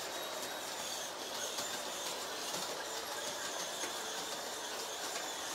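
Toy Christmas-tree train running along its track: a steady high whir with faint irregular clicking.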